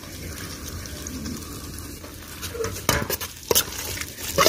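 A tempering of garlic, chillies and curry leaves sizzling in oil in a metal wok. About three seconds in, a metal spoon starts stirring it, scraping and clinking against the pan.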